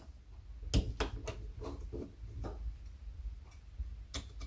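Screwdriver working the float-bowl screws of an Amal Concentric Premier carburettor, with the carb body shifting in the hand: irregular small metallic clicks and taps, the sharpest about three-quarters of a second in.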